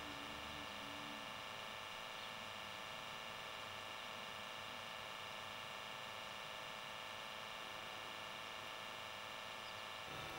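Faint steady hiss with a thin electrical hum, with no distinct sound event: recording noise.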